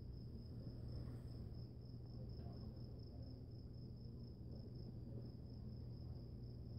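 Night crickets trilling: a steady, high-pitched, finely pulsing chirr that does not let up, over a low steady hum.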